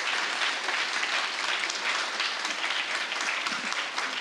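Audience applauding steadily: many people clapping at once.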